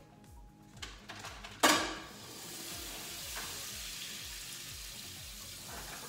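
Butter going into a hot pot on the stove: a sudden loud sizzle about one and a half seconds in, settling into steady sizzling as it melts.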